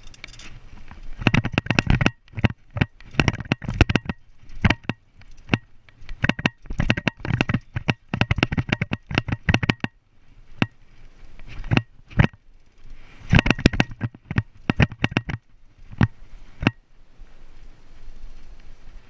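2014 Devinci Jackson RC mountain bike ridden over dirt and wooden plank features: irregular clattering knocks and rattles from the bike and its tyres over bumps and boards, coming in dense runs a second or two long with quieter stretches of rolling noise between.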